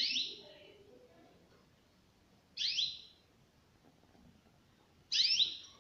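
Caged finch giving a loud, shrill call three times, about two and a half seconds apart; each call is a quick note sliding downward in pitch.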